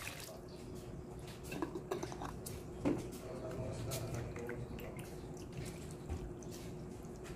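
Syrupy red nata de coco cubes sliding and plopping out of a glass jar into a colander, with dripping syrup and a few light knocks of jar and bowl.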